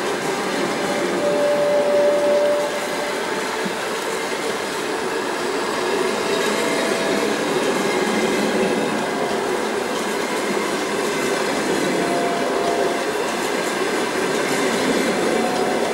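Passenger coaches rolling past at speed, their wheels on the rails making a steady loud rumble and rush. A few brief wheel squeals ring out as short steady tones, about two seconds in, around six seconds and again near twelve seconds.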